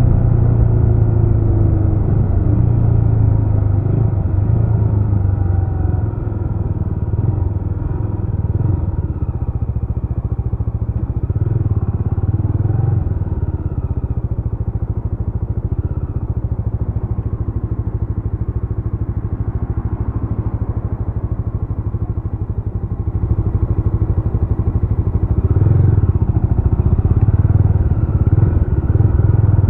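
Jawa RetroTrail 650's single-cylinder engine running under way with a dense, steady beat. It eases off through the middle stretch and picks up again about three-quarters of the way through.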